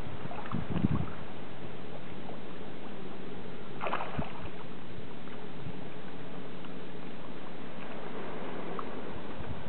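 Steady waterside background noise with a faint low hum, a few low thumps in the first second, and a short sharper sound about four seconds in.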